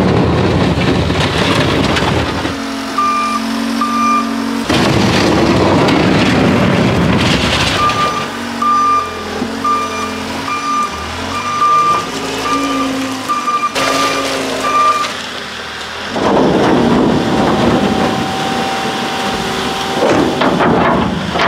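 Manitou telehandler at work: the diesel engine running hard and loud while the bucket digs into and lifts a heap of old parsnips, and the reversing alarm giving a run of steady high beeps each time the machine backs up, once briefly and then for several seconds in the middle.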